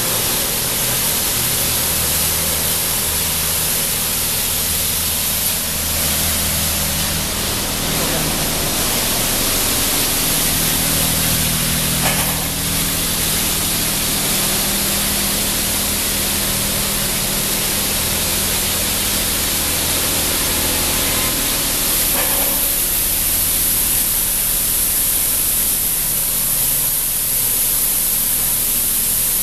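MacNeil car wash equipment running: a steady hiss of spraying water over a low, even hum of machinery.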